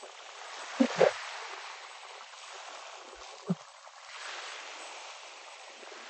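Sea water lapping and washing against the shore as a steady hiss that swells and eases, with a couple of brief slaps about a second in and another a little after the middle.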